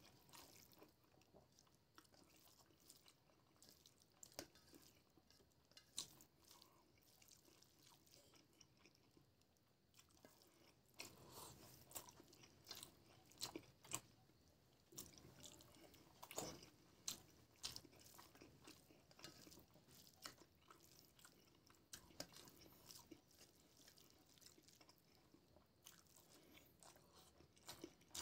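Faint hand-eating sounds: fingers squishing and mixing rice with egg curry on a steel plate, and wet clicks of chewing. The clicks come irregularly and grow busier in the middle.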